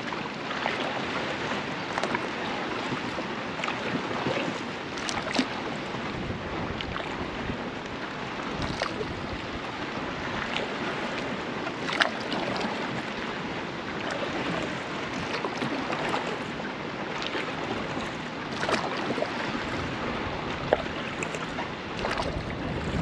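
Water swishing and lapping around a kayak hull as it is paddled, a steady rush with a few sharp splashes or knocks.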